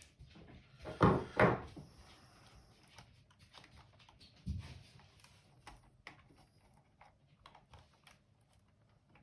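Knocks and light clicks of a robot vacuum's plastic parts being handled during disassembly: two loud knocks close together about a second in, another about four and a half seconds in, then scattered small clicks.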